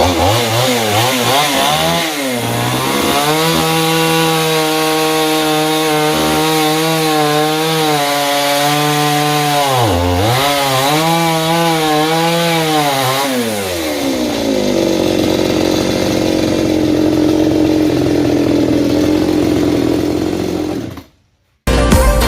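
Chainsaw engine running at high revs, with one brief dip in revs about halfway through; after about two-thirds the revs fall and it runs lower and rougher. It cuts off suddenly near the end.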